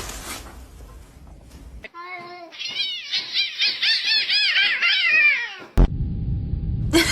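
A cat meowing in a quick string of short rising-and-falling calls, about four a second, for roughly four seconds. It is preceded by a steady noise and followed by a sharp click and a low rumble.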